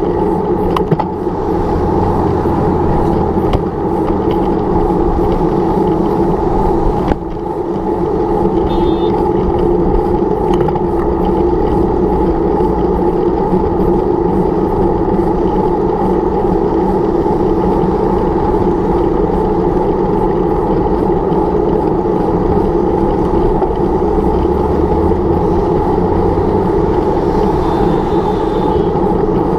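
Steady road traffic noise, car engines and tyres running, heard from a bicycle riding in traffic.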